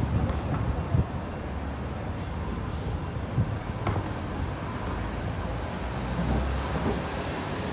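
City street traffic: cars drive past with a steady low engine and tyre rumble that swells around six seconds in. There are two short thumps in the first second.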